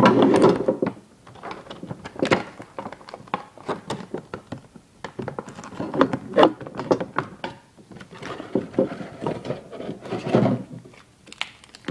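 A small plastic toy vending machine and its cardboard packaging being opened and handled: a busy run of knocks, taps, clicks and rustles, loudest at the start and again near the end.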